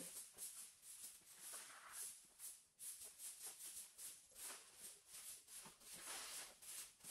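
Brooms sweeping debris across a tiled floor: faint, repeated swishing strokes, two or three a second.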